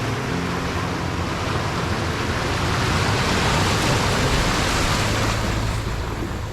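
Strong wind rushing, swelling to a peak about halfway through and then easing, with low notes of background music underneath.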